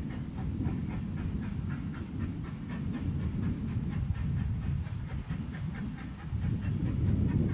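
Wind rumbling and buffeting on the microphone, swelling and easing, with a scatter of short high chirps above it.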